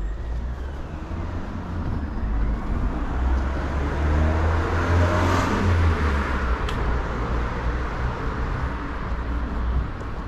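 A motor vehicle passing close by on a city street, its sound swelling to a peak about five seconds in and then fading, over a steady low traffic rumble.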